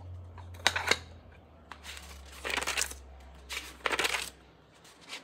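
A crayon clicking against the metal spiral binding of a wooden replica notebook: two sharp clicks about a second in, then two longer scraping rattles as the notebook is handled.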